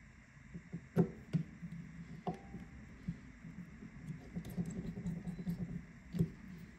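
A few light, scattered clicks and taps of small tools and screws on a smartphone's frame during reassembly, over a faint low rumble.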